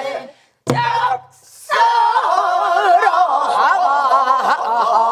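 Pansori singing: a woman's voice holding a line with a heavy, wavering vibrato. There is a single sharp knock just under a second in, before the singing.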